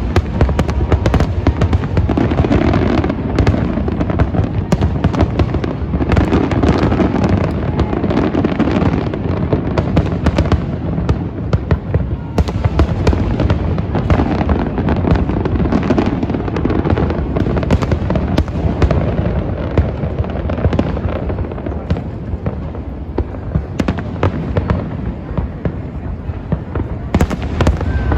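Large fireworks display: a constant barrage of shells bursting in quick succession, many sharp bangs and crackles over a continuous rumble of booms.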